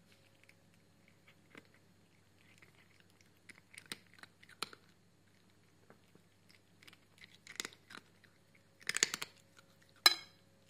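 Close-up crackling and rustling of a cat's fur rubbing against a hand right by the microphone, in irregular bursts that grow louder and come thicker near the end.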